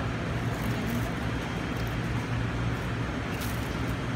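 Steady low machinery hum, with faint handling noise and a brief rustle of a plastic bag near the end as whole fish are lifted from it.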